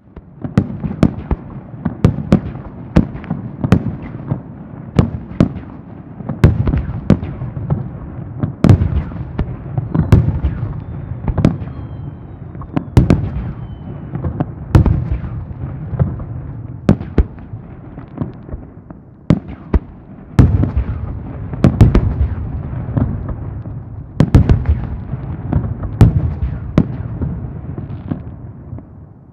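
Aerial fireworks shells bursting in quick succession: sharp booms, mostly a second or so apart, over a continuous rumble of echoing bursts and crackle.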